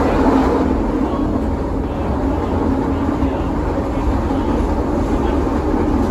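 CTA 2600-series rapid transit car running along the track, heard from inside the car: a steady noise of wheels and running gear. A humming tone is strongest at first and fades after about a second.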